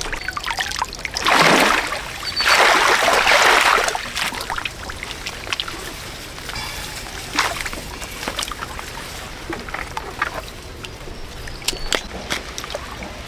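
Water splashing: two loud splashes, one about a second in and a longer one from about two and a half to four seconds, then small trickles and light knocks.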